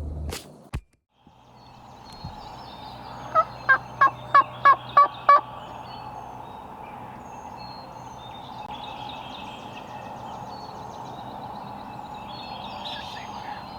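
Wild turkey calling: a run of seven loud yelps, about three a second, with small birds singing faintly behind.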